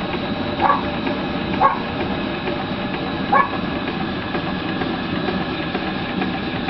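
Steady roar of the gas burner firing an antique vertical steam boiler, with a fast mechanical clicking from the steam engine it drives running at 20 PSI. Three brief higher chirps stand out about a second, two seconds and three and a half seconds in.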